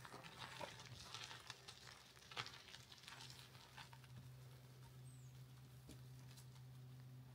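Near silence: faint scattered taps, mostly in the first couple of seconds, over a low steady hum, with one brief faint high chirp about five seconds in.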